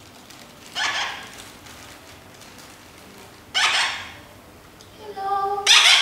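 Young parrots giving three loud, harsh squawks, each about half a second long and two to three seconds apart, with a shorter, clearer pitched call just before the last squawk.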